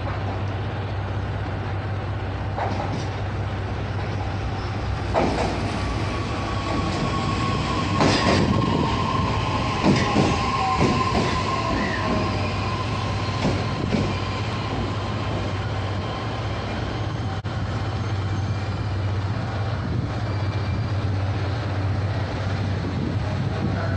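Electric train running into a station platform. The wheels knock over rail joints a few times and a thin, slightly falling wheel-and-brake squeal rises over a steady low hum, then fades out in the second half.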